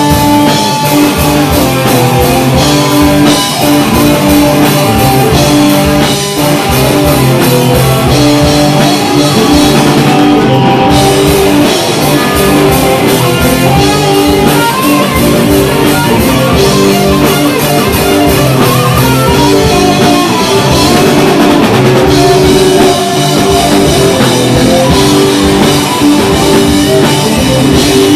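Live rock band playing loud and without a break: electric guitar over a driving drum kit.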